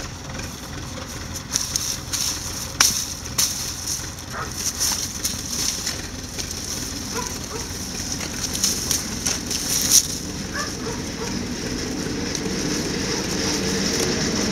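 Garden hoe chopping and scraping into sandy soil to dig up Jerusalem artichoke tubers, irregular crunching strokes as the earth is turned over.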